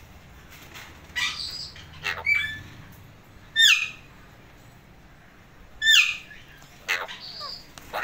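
Alexandrine parakeets calling: a run of short squawks and chatter, with two sharp downward-sliding calls about three and a half and six seconds in.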